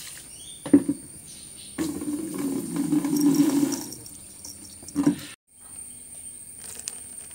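Water sloshing and splashing in a plastic basin as a Doberman puppy is washed by hand, with a sharp knock about a second in and a longer stretch of splashing from about two to four seconds in.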